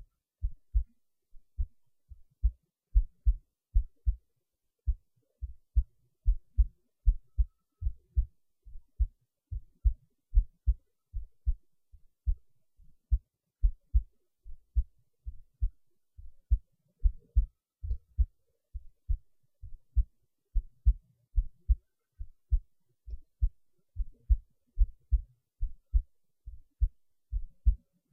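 A heartbeat: a steady rhythm of low, dull thumps, each beat a close pair (lub-dub), repeating a little faster than once a second.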